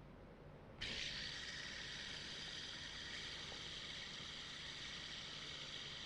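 Fidget spinner set spinning a little under a second in, then a steady high-pitched whir.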